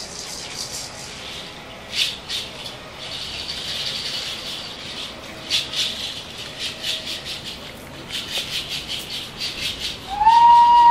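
A hand rattle shaken in quick, even strokes, in groups with short pauses between them. About a second before the end, a loud, steady, whistle-like high tone comes in with a short upward slide.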